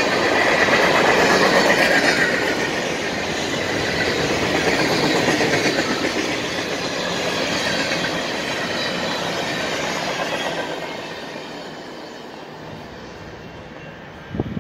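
Freight train boxcars rolling past on the rails: a steady rumble and clatter of wheels with some high wheel squeal. The sound fades away about ten seconds in as the last cars pass and the train moves off. A short sharp knock comes right at the end.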